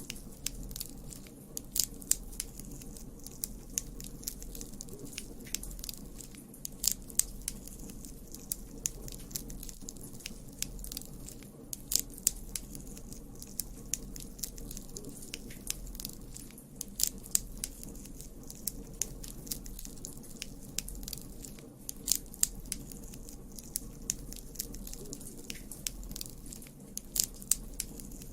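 Campfire burning: a steady low rumble of flame with irregular sharp crackles and pops of burning wood, coming in clusters every few seconds.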